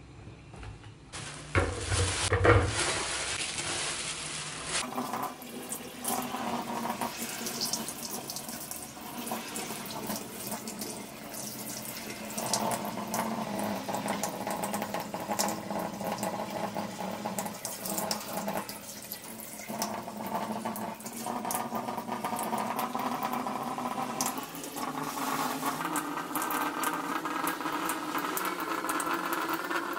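Kitchen tap running into a stainless steel sink. The water comes on suddenly about a second and a half in, then runs steadily, its pitch shifting as the stream splashes over a fish and hands being rinsed under it.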